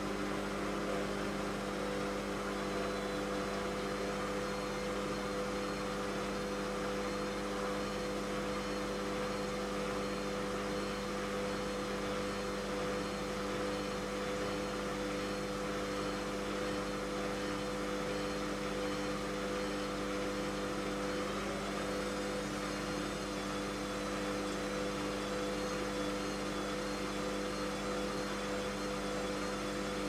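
Bush WMNSN612W washing machine with its drum spinning at a steady speed: an even motor whine over a low hum, with no pauses or changes of direction.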